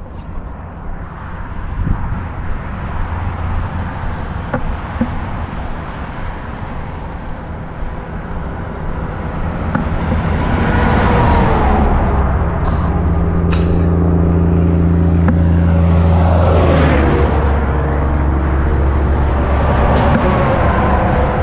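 Steady low rumble of highway traffic, then a tractor-trailer approaching and passing close by: its engine and tyre noise build up from about halfway through and its pitch drops as it goes past.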